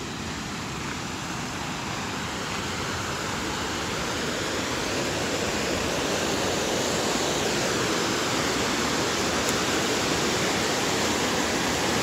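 Whitewater rushing down a lake spillway over rock ledges: a steady rush of water that grows gradually louder over the first several seconds.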